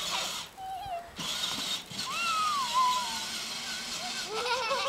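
A young child's high-pitched wordless vocalizations: a short call, then a long falling 'ooh' in the middle and quick rising squeals near the end. Under them runs the faint steady hum of a battery-powered toy ride-on Jeep's electric motor.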